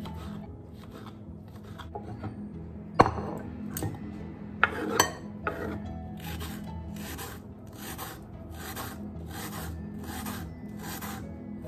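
Kitchen knife slicing mushrooms and then a red onion on a wooden cutting board. A few sharp knocks come between about three and five seconds in, followed by an even run of cuts, about two a second, each blade stroke meeting the board.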